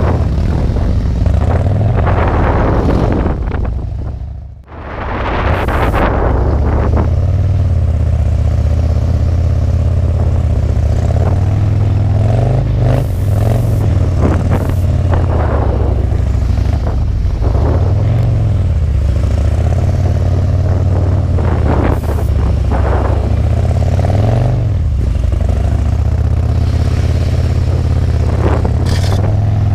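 Harley-Davidson touring motorcycles' V-twin engines running at low speed, the rumble wavering as the throttle opens and closes, with brief swells of louder noise several times. The level dips away briefly about four seconds in.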